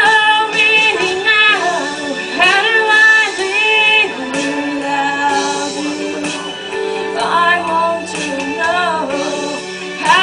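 A song: a female voice sings phrases over an instrumental accompaniment.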